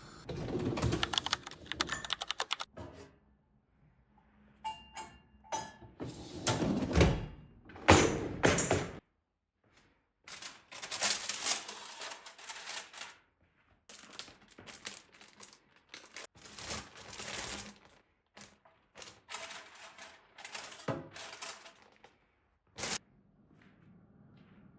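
Household clatter: knocks, thunks and rapid clicks of objects being handled and set down, in short separate bursts with silent gaps between them and a single sharp knock near the end.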